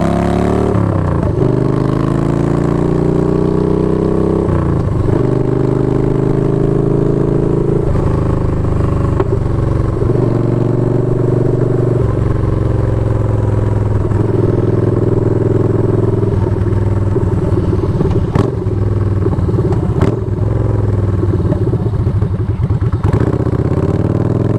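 Yamaha Bolt's V-twin engine running through its exhaust while riding. The pitch climbs and drops back several times, evens out, then falls away before climbing again near the end. A couple of sharp knocks come after the middle.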